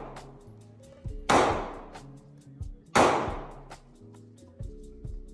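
Two gunshots, a bit under two seconds apart, each sharp crack trailing off in a long ring, over background music with a steady ticking beat.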